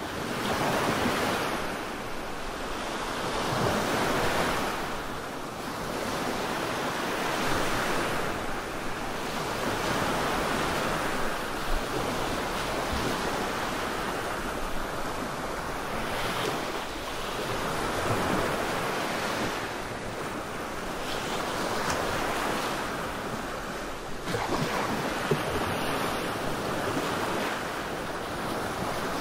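Black noise played as a sleep sound: a continuous rushing noise, strongest in the middle range, that swells and eases every few seconds.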